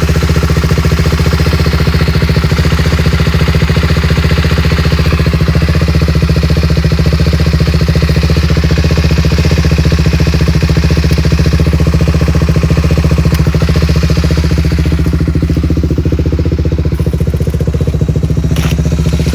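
Suzuki LTR 450 quad's single-cylinder four-stroke engine idling at a steady, even pitch, held running without revving or stalling. The owner reports hard starting, stalling and bad bogging on this engine.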